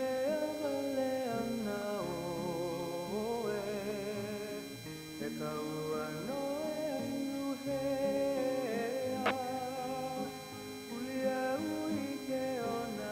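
Background music: a song with a singing voice over plucked guitar.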